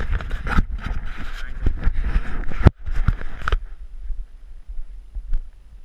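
Rustling and handling noise on a body-worn camera, with a low wind rumble on the microphone and many small knocks, for about three and a half seconds, then cutting off abruptly. After that it is much quieter, with one sharp click.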